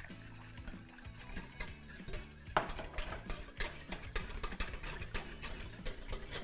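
Metal wire whisk stirring sauce in a stainless steel saucepan: rapid light clinks and scrapes of the wires against the pot, busier from about two and a half seconds in.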